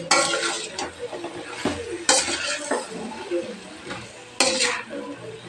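Metal spatula stirring and scraping chicken pieces around a stainless steel kadai, mixing in chilli and coriander powder. Three loud scrapes against the pan come roughly two seconds apart, with softer scraping between.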